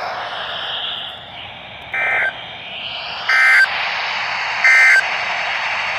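Three short Emergency Alert System (SAME) digital data bursts, each about a third of a second and a little over a second apart, over the steady hiss of a weather radio receiver: the end-of-message signal that closes the alert.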